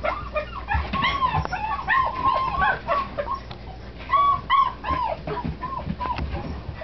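Several Labrador retriever puppies whimpering and yipping: a stream of short, high calls that rise and fall in pitch, often overlapping, thinning out near the end.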